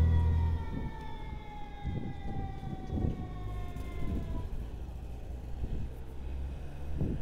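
Low, gusty rumble of wind buffeting an action camera's microphone on a moving electric unicycle. Over it, a pitched tone slides slowly down and fades out about four seconds in.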